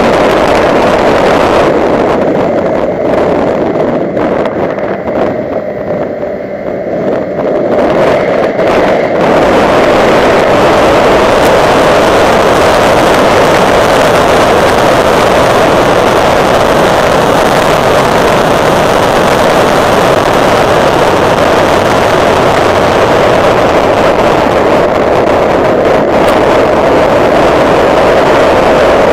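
2009 Honda Civic Si driven at speed: a loud, steady rush of engine, tyre and wind noise. It drops for a few seconds about four seconds in and comes back up to full level about nine seconds in.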